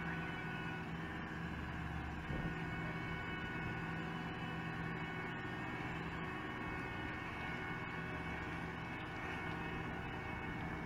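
Diesel engines of an asphalt paver and the dump truck feeding it running steadily at a constant speed while paving, with a single brief knock about two seconds in.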